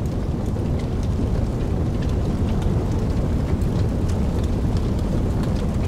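Wood fire burning with a steady low rumble and scattered sharp crackles and pops.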